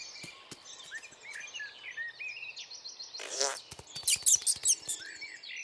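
Cartoon field ambience of small birds chirping, with scattered soft clicks. Just past three seconds in there is a short, loud, wavering noisy burst, then a run of loud scratchy scurrying sounds as a mouse dashes along the hay bales.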